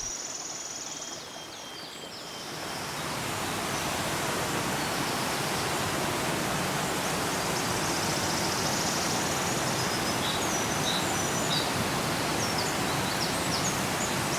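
A waterfall's steady rushing water, coming up about two and a half seconds in and then holding even, with high chirping calls over it.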